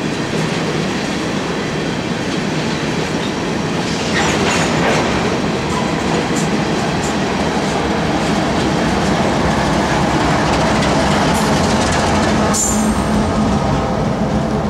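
Empty steel coal hopper cars rolling past, their wheels clattering over the rails, followed by the rear distributed-power diesel locomotive, whose engine hum rises under the wheel noise in the second half. There are a few sharp metallic strikes, one about four seconds in and a louder one near the end.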